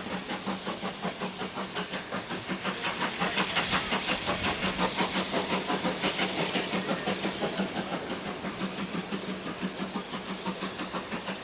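Full-size steam locomotive working under steam, its exhaust beat a regular chuff of several beats a second, growing louder in the middle and easing off towards the end.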